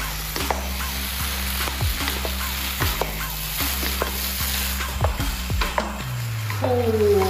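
Rice vermicelli stir-frying in a hot pan, sizzling steadily while two wooden spatulas toss and scrape it, over background music with a steady bass line. About six and a half seconds in, a pitched sound glides downward.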